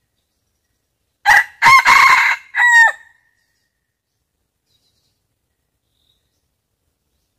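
Red junglefowl rooster crowing once: a short crow of about two seconds, starting about a second in.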